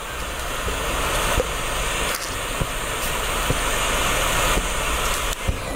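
Butane torch lighter hissing steadily as its jet flame lights a cigar, cutting off near the end.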